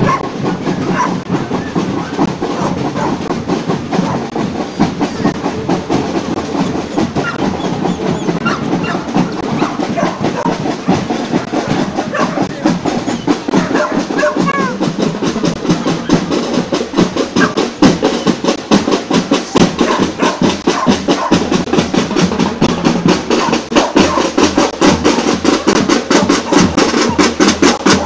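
Parade drum band of bass and snare drums beating a fast, steady marching rhythm, growing louder in the second half.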